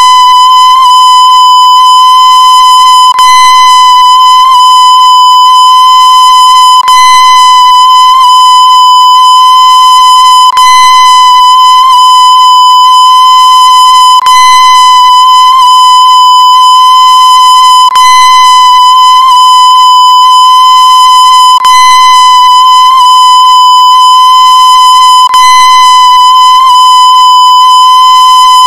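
A steady, very loud, high-pitched electronic beep: one unchanging tone, distorted, with a short click roughly every three and a half to four seconds.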